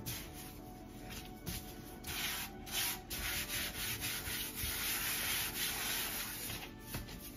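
A gloved hand rubbing back and forth across a flour-dusted silicone pastry mat. The rubbing starts about two seconds in and stops near the end.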